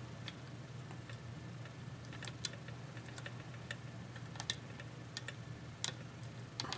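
Faint, irregular small clicks of a lock pick working the pins of a pin-tumbler lock held under tension, with a low steady hum underneath.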